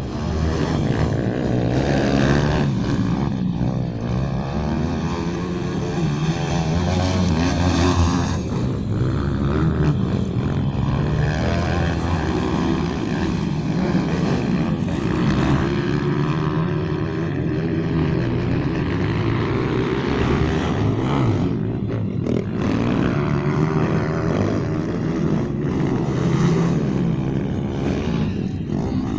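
Several pit bike engines running and revving as the bikes race on a dirt motocross track, their pitch rising and falling with the throttle.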